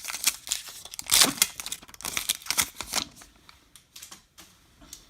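Baseball cards being handled and flipped through, with paper rustling, crinkling and quick clicks for about three seconds, then a few scattered ticks.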